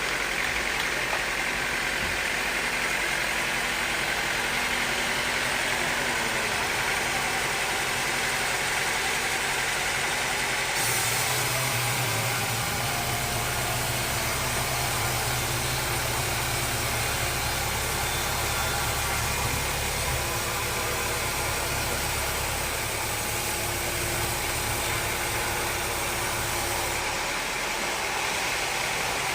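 Sawmill machinery running steadily with a motor hum. About eleven seconds in the sound thickens with a deeper hum and more hiss, and the deeper hum drops out near the end.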